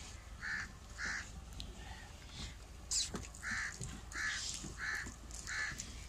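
A crow cawing over and over: a run of about eight short caws, evenly spaced roughly two-thirds of a second apart.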